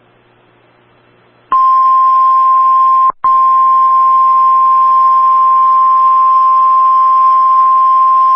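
NOAA Weather Radio warning alarm tone: one loud, steady high tone that starts about a second and a half in after faint receiver hiss, breaks off very briefly about three seconds in, then holds on. It is the alert that comes before a severe thunderstorm warning is read.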